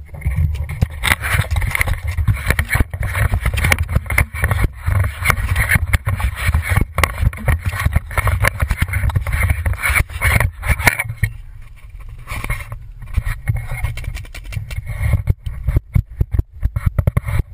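Paintball marker firing in irregular volleys of sharp pops, over rumbling and knocking from the marker being handled, heard through a camera mounted on the marker. There is a quieter spell about two-thirds of the way in, then more pops.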